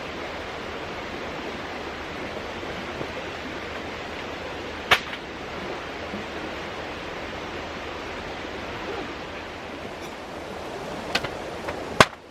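Mountain stream flowing with a steady rushing sound. A few sharp clicks cut through it, one about five seconds in and two near the end.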